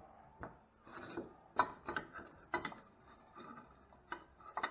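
Light clicks, taps and scrapes of metal parts being handled and fitted together by hand, with a few sharper taps about a second and a half in and near the end.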